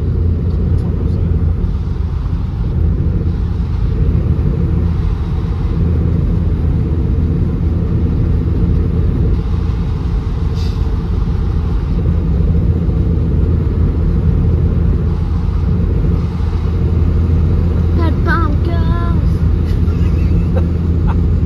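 Steady road and engine noise inside the cabin of a Ford Transit Connect van cruising at motorway speed: a constant low rumble. Near the end there is a brief wavering voice-like sound.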